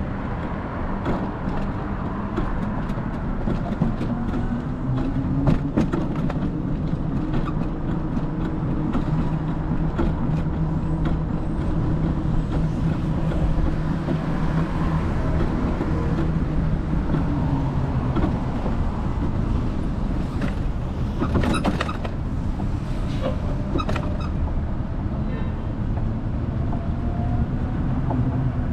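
A car on the move: steady engine and road noise, the engine note slowly rising and falling as it speeds up and slows, with scattered sharp clicks and knocks.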